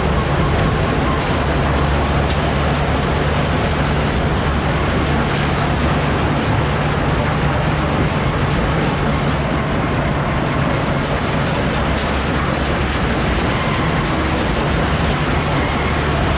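CAT 252B skid steer's diesel engine running steadily under load, a constant low drone with a rough noisy wash over it, as the machine drives through mud and rock.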